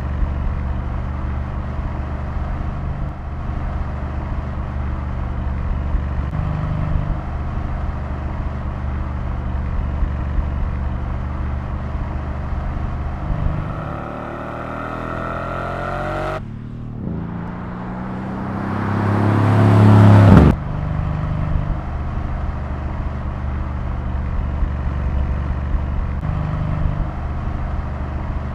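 Mercedes-AMG S 63's twin-turbo 4.0-litre V8 and exhaust running steadily at cruising speed. In the middle the revs climb twice under acceleration, the second time much louder, rising to a peak before it cuts off suddenly, and then the steady cruising note returns.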